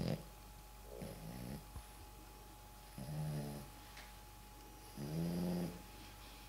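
French bulldog snoring: four snores about two seconds apart, the first one short.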